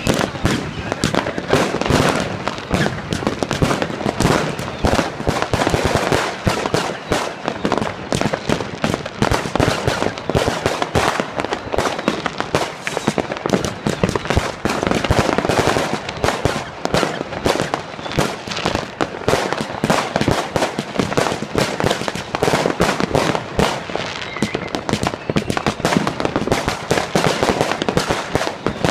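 Fireworks going off in a dense, continuous barrage: many overlapping bangs and crackles follow one another without a pause.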